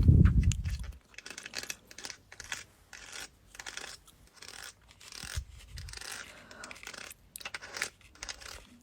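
Close-miked ASMR scratching and rubbing: a loud low bump in the first second, then a run of short, crisp scratchy strokes and rustles.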